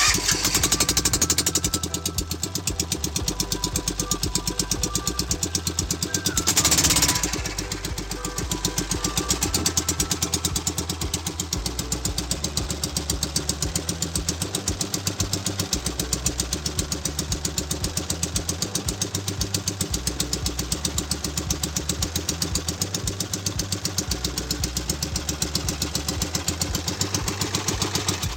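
Small gasoline engine, fitted with an electric starter, running steadily with an even, rapid firing beat. A brief louder rush comes about seven seconds in.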